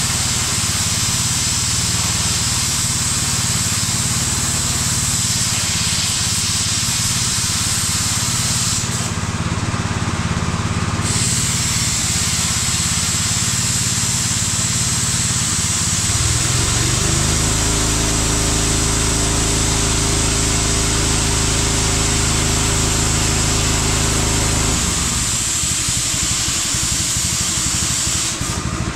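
Plasma cutter torch cutting thin steel: a steady high hiss of the arc and compressed air. It stops for about two seconds a third of the way in and again near the end, over the steady hum of a running motor that changes pitch for several seconds past the middle.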